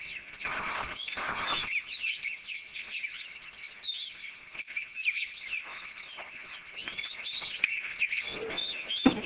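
Birds twittering: many short, quick chirps, with a few brief swishing noises in the first couple of seconds. A single sharp thump near the end is the loudest sound.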